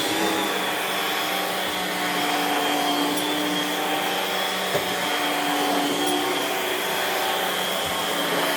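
Homemade central vacuum running through a long hose and carpet head being pushed over carpet: a steady hiss of suction with a few steady whining tones, and a small knock about five seconds in.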